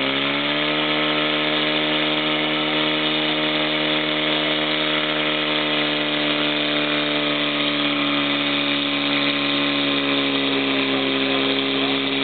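Portable fire pump engine held at full throttle, pumping water through the hose line to the jet nozzles. Its pitch climbs a little at the start, then runs steady at high revs and starts to fall right at the end as the throttle comes off.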